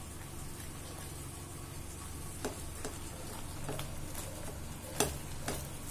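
Silicone spatula stirring thick badam halwa (almond paste cooking with ghee and sugar) in a non-stick pan, with a faint steady sizzle and a few short clicks, the loudest about five seconds in.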